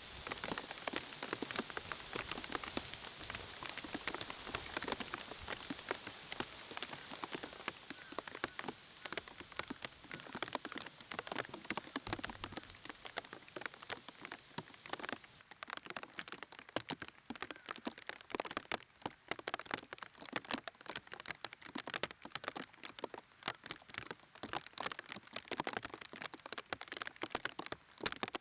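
Rain falling and pattering on a surface, a dense, steady run of small drops that sets in abruptly and thins slightly at the top end about halfway through.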